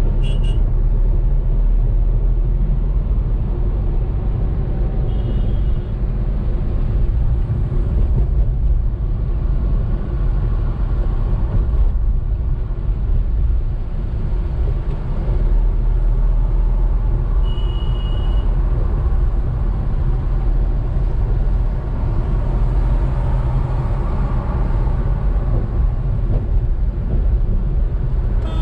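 Car driving in steady road traffic: a constant low rumble of engine and tyre noise, with two short high-pitched beeps, about five seconds in and again about eighteen seconds in.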